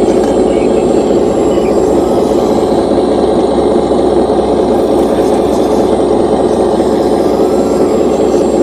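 The hydraulic pump of a scale RC hydraulic excavator runs steadily with a loud, even drone while the long-reach boom lifts and swings the bucket.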